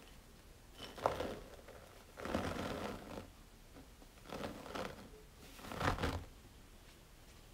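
Flour being poured into a glass bowl in four short bursts of soft rushing noise.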